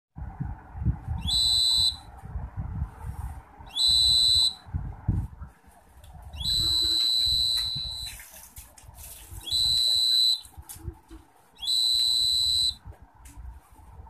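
Piezo buzzer of a homemade infrared-beam door alarm sounding a high, steady beep five times, each burst half a second to about two seconds long, as the beam is blocked and unblocked. Soft handling knocks come between the beeps.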